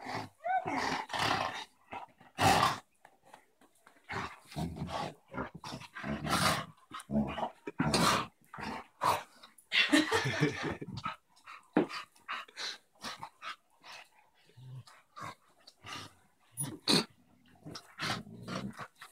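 Dogs play-fighting, with play growls in short, irregular bursts.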